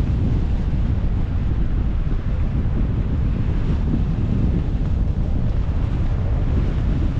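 Wind buffeting the microphone: a loud, steady low rumble that flutters constantly.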